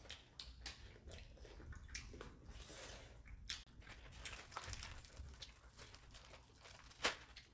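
Soft eating sounds: people chewing and biting into seasoned fried chicken, with scattered small clicks and ticks of chopsticks and food handling, and one sharper click about seven seconds in.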